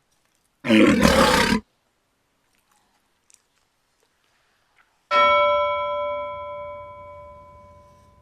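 Two added sound effects. First a loud roar lasting about a second, then a single bell strike about five seconds in that rings and slowly fades.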